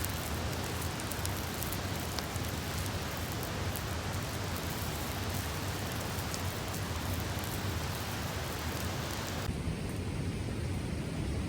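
Campfire burning: a steady rushing hiss with an occasional faint pop. The hiss turns duller about nine and a half seconds in.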